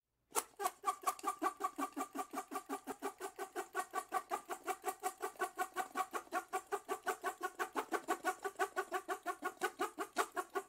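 Fast, evenly paced bird calls like poultry clucking, several a second in an unbroken run that starts just after a short silence; a looped sound effect.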